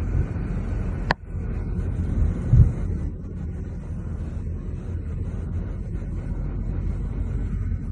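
Steady low rumble of a car driving on the road, with a sharp click about a second in and a brief low thump shortly after.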